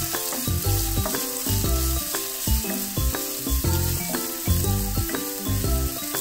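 Chopped vegetables sizzling in hot oil in a nonstick pan as they are stirred with a wooden spatula. Background music with short pitched notes and a low beat plays underneath.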